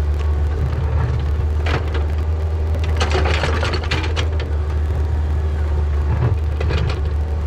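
Yanmar ViO50 mini excavator's diesel engine running steadily while its bucket digs and scrapes into soil, with crunching of dirt and clods three times. The longest and loudest crunch comes about three seconds in.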